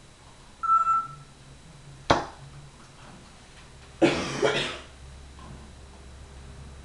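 African grey parrot making a short whistled note, then a sharp click about two seconds in, then a cough about four seconds in.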